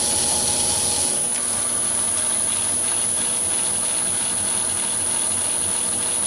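Small metal lathe running with no cut being taken, its spindle slowing from about 860 to 465 rpm about a second in and then running steadily.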